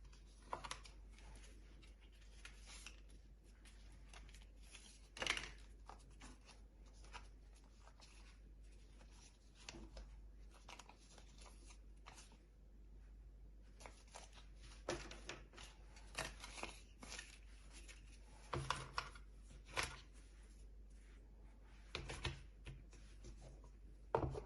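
Hands handling a phone and its box and packaging: faint, scattered rustles with light clicks and taps, a few louder ones near the middle and toward the end.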